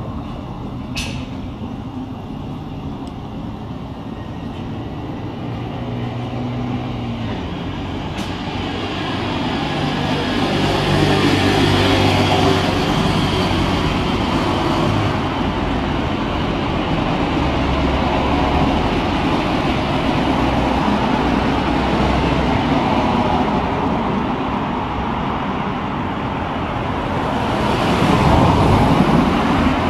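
Road traffic on a city street: cars, vans and trucks running and driving past. It grows louder about ten seconds in, and swells again near the end as a vehicle passes close.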